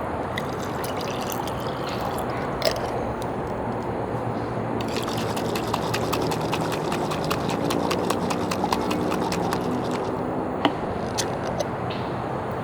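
Liquid running steadily into a container as it fills. A low machine hum and a run of quick clicks come in from about five to ten seconds in, with other single clicks scattered through.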